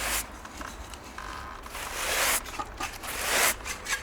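Short, rough scraping strokes: a brief one at the very start, one about two seconds in, and a longer one just after three seconds.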